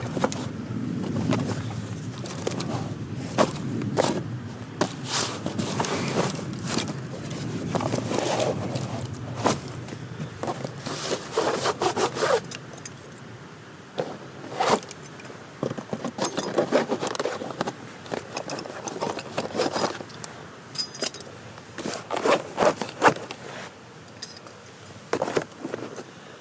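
Irregular clinks and scrapes of hard objects being handled, with short clattering sounds spread unevenly throughout.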